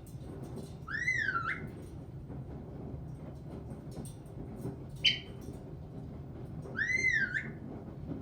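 Caique parrot whistling: two arched notes that rise and then fall, about six seconds apart, with a short sharp chirp between them.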